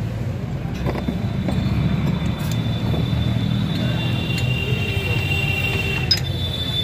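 A motor vehicle engine running steadily, a low rumble, with a thin high whine joining about a second in and a few light metallic clicks.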